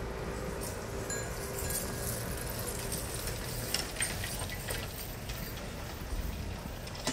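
City street ambience: a low steady rumble of traffic, with scattered clicks and knocks that are thickest in the middle, and a faint hum that fades out about a second in.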